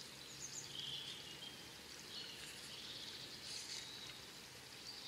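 Faint bird calls, a few scattered chirps, over quiet riverside background noise.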